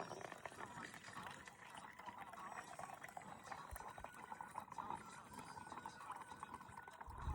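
Sugarcane juice pouring and gurgling into a cup, faint and steady.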